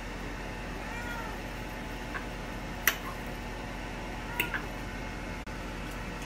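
A cat meowing twice, short calls that rise and fall in pitch. Between the calls comes a sharp clink of a fork against the plate about three seconds in, the loudest sound here, and two lighter clinks a little after four seconds.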